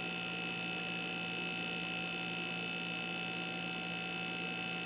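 Steady electrical hum with several constant tones, unchanging throughout; no shot or other event is heard.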